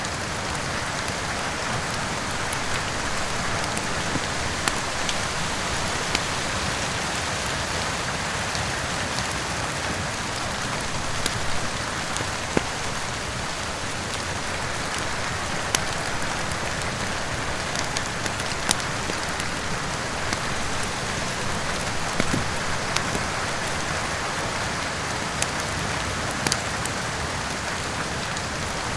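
Steady rain with a wood fire crackling, sharp pops breaking through at irregular moments.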